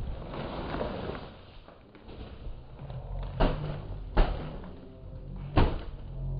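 Three sharp knocks, the second and third louder, of hard objects being tapped or shifted, after a soft rustle of sacks being handled.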